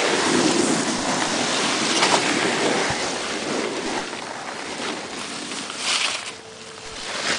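Wind rushing and buffeting over the microphone, a hiss that fades about halfway through, with a short swell near the end.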